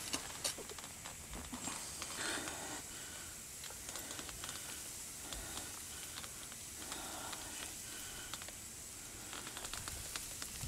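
Faint hiss and scattered small crackles as molten copper is poured from a crucible into an ingot mold.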